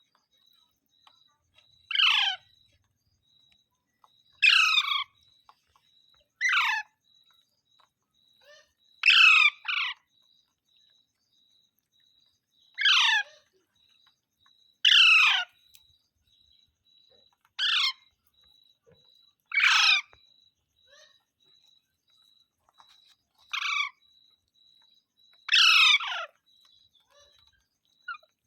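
Pet parrot calling: a dozen or so short, loud screeches, each falling in pitch, repeated about every two seconds.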